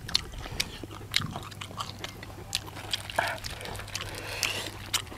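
Close chewing and crunching of mouthfuls of fresh herbs and raw duck blood dish: irregular small crunches, clicks and wet mouth noises, over a faint steady low hum.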